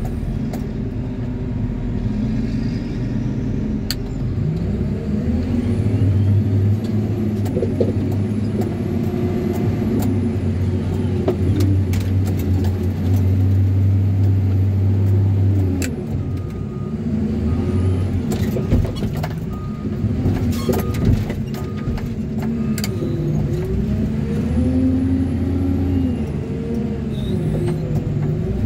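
Caterpillar wheel loader's diesel engine heard from inside the cab, revving up and down as the machine works, holding a heavy steady drone for several seconds while the bucket pushes into a sand pile. Partway through, a backup alarm beeps about once a second for several seconds.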